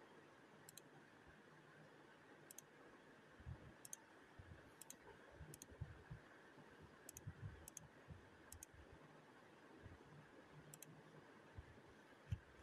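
Near silence: faint room hiss with about a dozen faint, sharp clicks at irregular intervals, roughly one a second, and a few faint low thumps.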